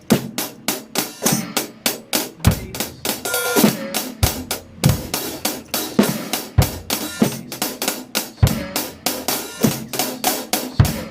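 Drum kit groove played slowly: steady sixteenth notes on the hi-hat, about four strokes a second, with bass drum kicks falling among them.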